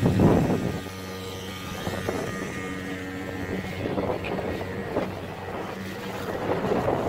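Small outboard motor on an inflatable boat running, throttled back about a second in and then running at low speed, with wind and water noise.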